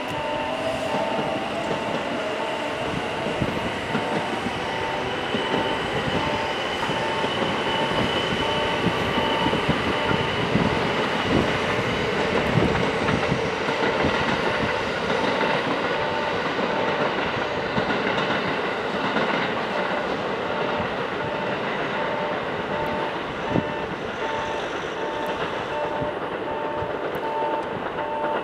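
JR West 683 series electric express train pulling out and rolling away over the station tracks. Its motors give a rising whine as it gathers speed near the start, over a steady rumble of wheels on rail. A repeating electronic beep pulses alongside.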